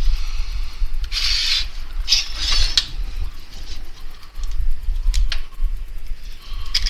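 Screwdriver scraping and clicking against the metal of a motorcycle chain's master link as it is pried at: two scraping strokes, then a few sharp clicks.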